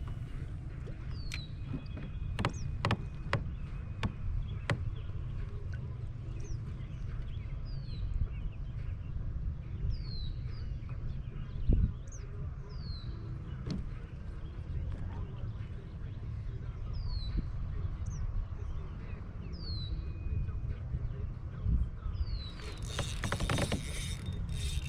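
A bird calls over and over, a short falling chirp every second or two, over a low steady rumble. There are a few sharp clicks in the first few seconds and a burst of rustling noise near the end.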